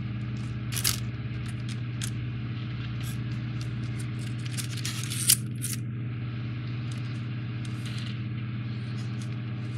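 Light clicks and scrapes of small model parts and hand tools being handled on a workbench, with one sharper click just after the middle. A steady low hum runs underneath.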